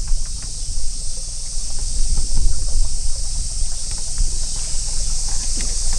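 Wind rumbling on the microphone, with a steady high-pitched drone of insects over it.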